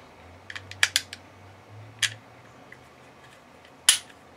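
Sharp clicks and clacks of a Glock pistol slide being handled: a quick cluster about a second in, a single click near two seconds and a louder one near the end.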